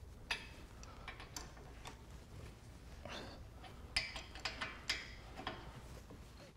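Irregular metallic clicks and clinks from a breaker bar and 21 mm socket turning a front brake caliper bolt as it is backed out, coming more often and a little louder from about four seconds in.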